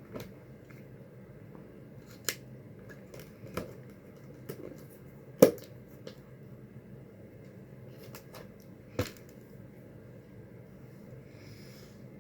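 Eating cherry cheesecake with a spoon: about eight sharp clicks of spoon and mouth at uneven intervals, the loudest about halfway through.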